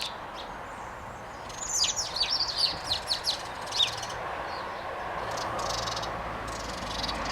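Small birds chirping: a quick run of a dozen or so sharp, downward-sweeping notes about a second and a half in, then fainter high chirps, over steady background noise.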